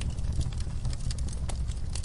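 Wood fire burning in a fireplace: a low steady rumble of the flames with irregular sharp crackles and pops.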